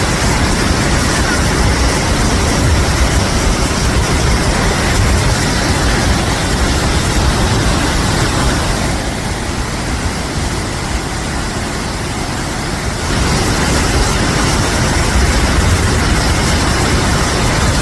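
Waterfall rushing: a loud, steady roar of falling water. The hiss softens for a few seconds in the middle, then comes back.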